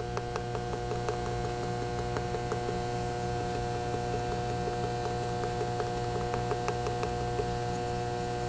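Steady electrical mains hum, several even tones held level, with faint scattered ticks over it.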